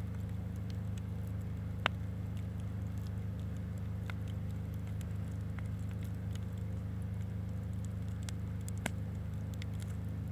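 Campfire crackling, with scattered sharp pops: two louder ones, about two seconds in and near the end, over a steady low rumble.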